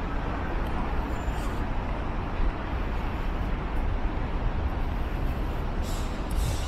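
Steady city traffic noise: an even hum with a low rumble, recorded on a small camera's built-in microphone.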